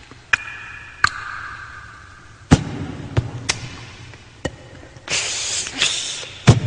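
Solo vocal body percussion: sharp, irregular hand slaps on the chest picked up close on the microphone, some with a low thud. A held high tone sounds through the first two seconds, and a loud breathy hiss comes in about five seconds in.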